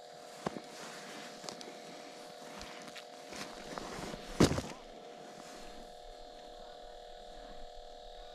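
Hands handling a freshly caught trout and fishing line: a few light knocks and rustles, with a louder thump about four and a half seconds in, over a steady hum.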